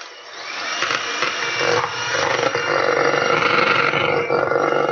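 Electric hand whisk running at speed, its beaters churning butter and sugar in a bowl as they are creamed towards a fluffy texture. It grows louder over the first second or so, then runs steadily.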